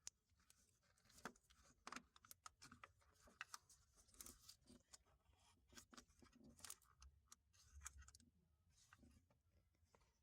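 Faint, irregular clicks and light knocks of hand tools on metal parts as the bolt holding a cable bracket is worked loose, several small ticks a second at uneven spacing.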